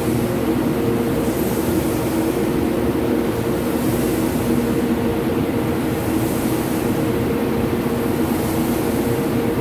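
CNC boring and milling machine running steadily while machining the inside of a steel pipe: an even mechanical hum with several held low tones.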